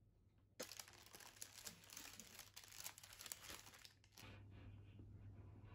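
Parchment baking paper crinkling and rustling as it is peeled away from a freshly baked cake, starting about half a second in and dying down after about three and a half seconds.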